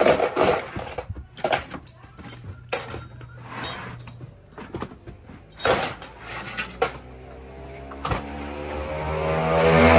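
Handling of rubber floor mats and carpet in a van's cargo floor: rustling and flapping with scattered knocks and clunks. Background music swells in over the last couple of seconds.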